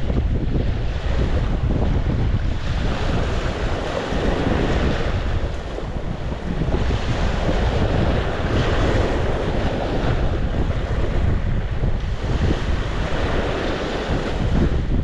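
Sea waves breaking and washing up the shore, the surf swelling and ebbing every couple of seconds, with wind buffeting the microphone in a steady low rumble.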